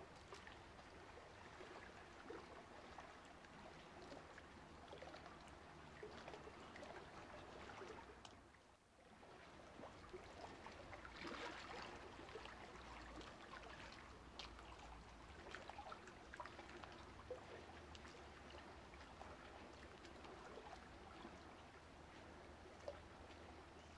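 Near silence: a faint watery hiss with small crackles over a low steady hum, dropping away briefly about nine seconds in.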